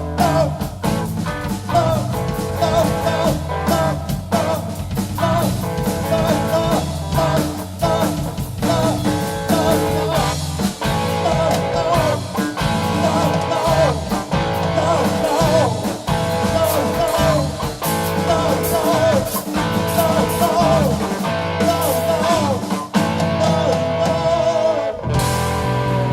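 Live rock band playing loudly: guitar lines with bending notes over bass and drums, settling into held chords near the end.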